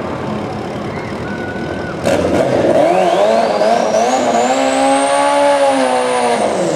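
Motorcycle engines revving at a drag strip start line. About two seconds in they get much louder, with a high whine that rises and then falls near the end as the sport bike pulls away.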